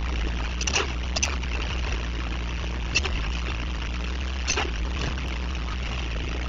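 Street ambience through a security-camera microphone: a steady low hum under an even hiss, with a few short scrapes or clicks about a second in, near the middle and a little later.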